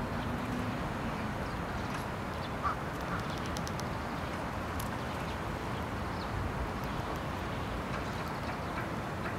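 Steady outdoor background noise, with a few faint short sounds over it, one a little louder about two and a half seconds in.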